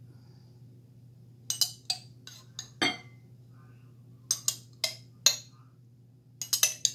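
A metal spoon clinking against glass as relish is scooped from a glass jar into a glass mixing bowl: a handful of sharp clinks about a second and a half in, another group around four to five seconds, and a quick run of them near the end.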